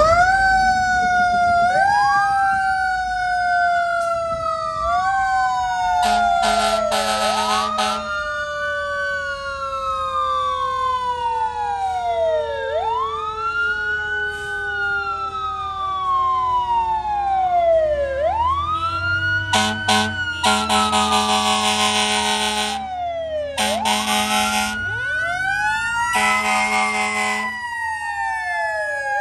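Fire apparatus sirens: an electronic siren wailing up and down about every five seconds, over a Federal Q mechanical siren winding slowly down in pitch. Long air horn blasts sound about six seconds in, again near twenty seconds, and near the end.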